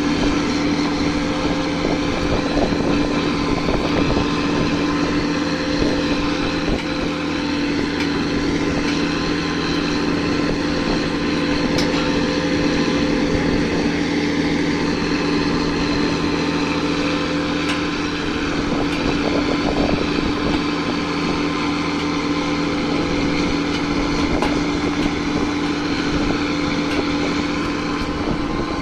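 Farm tractor's diesel engine running steadily under load as it pulls a rear-mounted cable-laying plough through the ground: a constant engine drone.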